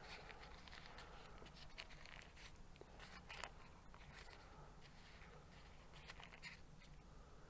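Near silence, with faint scattered rustles and soft handling noises as hands fold over the edges of pizza dough.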